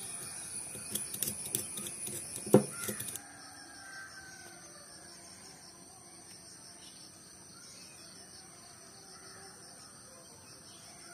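A flat metal blade scrapes and clicks against the terminal of a small sealed lead-acid battery, with one sharp knock, cleaning the terminal for soldering. After about three seconds it cuts off suddenly to a faint, quiet background.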